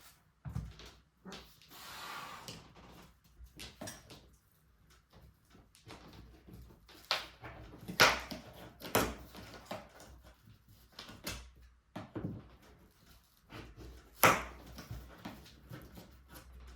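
Scattered knocks, clicks and rustles of a bicycle being unpacked from its cardboard box and packaging, with a few sharper knocks standing out.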